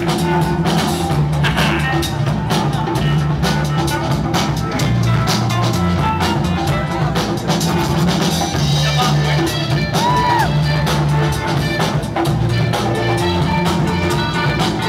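Loud music with a steady drum beat and heavy bass, played over a sound system for the dancers.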